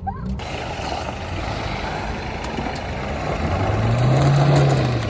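Isuzu V-Cross pickup's diesel engine running over steady road and tyre noise; near the end the engine note climbs and then falls back.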